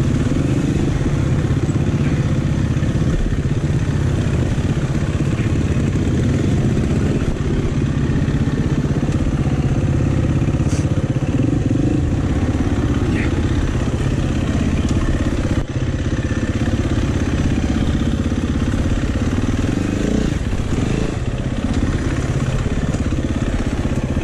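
Dirt bike engine running steadily at low revs as the bike picks its way along a rocky, rooty singletrack, with a few sharp knocks along the way.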